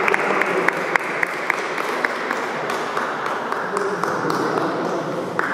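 A small group of people clapping, with voices mixed in; the claps grow sparser as the applause dies down.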